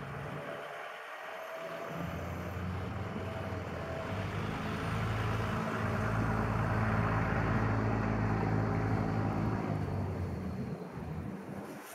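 Vehicles driving past on a snow-covered street: engine hum and tyre noise on the snowy road swell over the first half, are loudest around seven seconds in, then ease off near the end.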